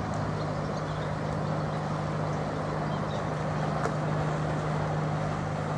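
Engine of a river passenger boat running steadily, a low, even hum that holds through the whole stretch.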